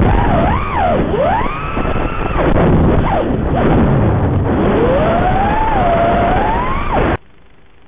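FPV racing quadcopter's brushless motors whining over a rush of prop wash. The pitch rises and falls sharply with the throttle through a fast flip. About seven seconds in the sound cuts off to a low hiss with a faint steady hum.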